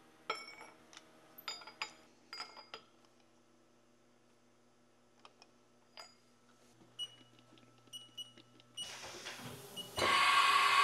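Light metallic clicks and taps with a short ring as a CAT 40 tool holder with a drill is handled and seated in a tool height setter's taper. Near the end a loud, steady machine rushing noise with a held tone starts abruptly.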